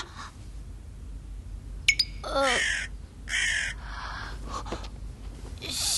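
A crow cawing, a few harsh calls about two to four seconds in, the first one falling in pitch.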